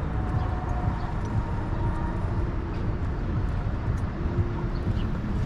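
Steady low rumble of outdoor city background noise, with faint tones from passing traffic.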